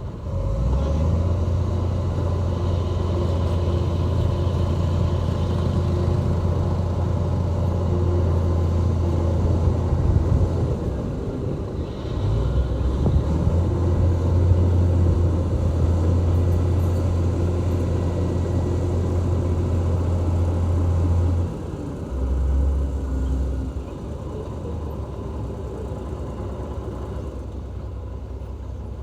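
Heavy earthmoving machine's diesel engine running with a steady, loud low drone. It dips briefly about halfway through, comes back up, then gives a short surge and falls to a quieter level in the last few seconds.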